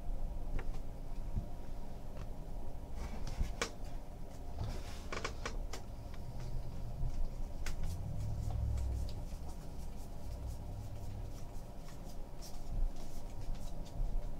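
A stack of baseball trading cards being thumbed through by hand: scattered soft clicks and rustles as the cards slide past one another, over a low steady hum.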